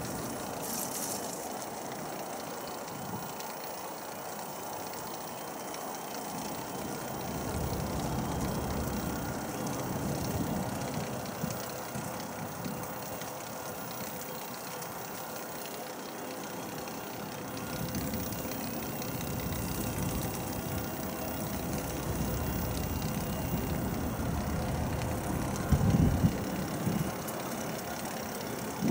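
A boat's engine running steadily while under way on the river, with a low rumble that swells and fades several times.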